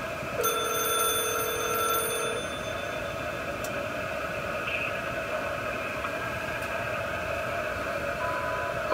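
Cordless phone handset sounding through its earpiece: a steady electronic buzz throughout, with a plain tone lasting about two seconds near the start and a short higher beep near the end.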